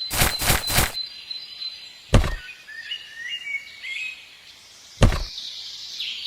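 Several sudden dull knocks: a quick run of them at the start, then single ones about two and five seconds in, with faint bird chirps between them.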